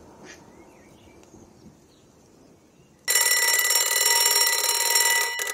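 Faint outdoor background for about three seconds, then a loud electronic alarm-clock buzzer sounding steadily at one pitch, starting suddenly and stopping just before the end.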